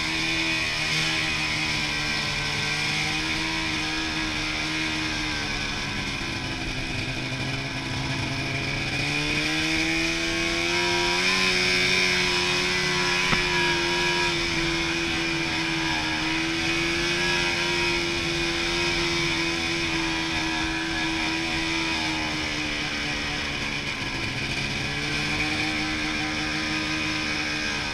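Snowmobile engine running under way, its pitch falling and rising as the throttle is eased and opened, climbing about ten seconds in and again near the end.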